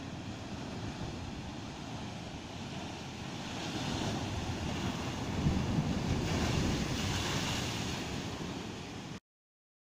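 Heavy ocean surf breaking against lava rock: a steady rush of churning water that swells louder in the middle as a big wave crashes in. It cuts off abruptly to silence just before the end.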